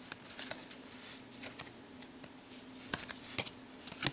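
Football trading cards being handled and flipped through by hand: a scatter of light clicks and slides of card stock, a few sharper ones about half a second in and near the end.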